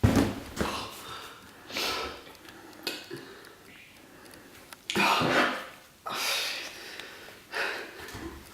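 A man breathing hard in short gasps and snorts as he comes round, the loudest about five seconds in.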